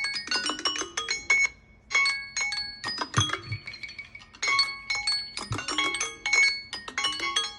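Samsung Galaxy phones' alarm tone and timer tone playing at the same time through the phone speakers: an electronic ringtone melody of short, bright, bell-like notes in quick phrases, broken by brief pauses.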